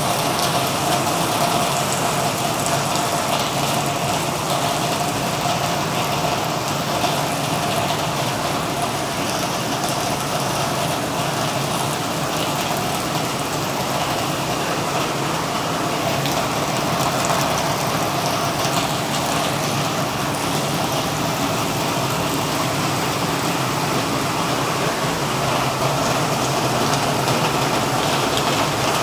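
Heavy monsoon rain pouring steadily onto trees and corrugated metal roofing, a constant dense hiss without breaks.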